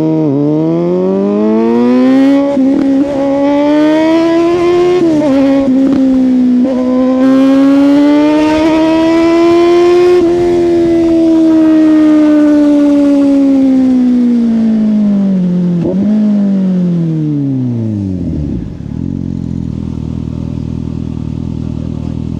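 Suzuki GSX-S750's inline-four engine through a Yoshimura exhaust, pulling up through the revs with a few brief dips in pitch like gear changes. It then winds down slowly, with one short blip, and settles to a steady idle near the end.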